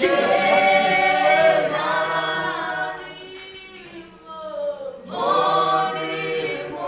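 A group of voices singing unaccompanied with long held notes, like a congregation or choir singing a hymn. The singing fades about three seconds in and swells again about five seconds in.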